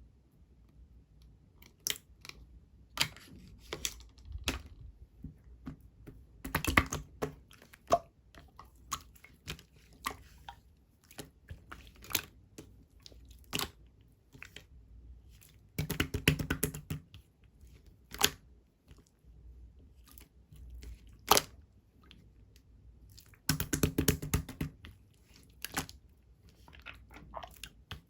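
Blue clear slime being squished and pressed by hand, giving sharp wet clicks and pops. Three longer bursts of dense crackling, bubbly squelching come about a quarter of the way in, past halfway, and near the end.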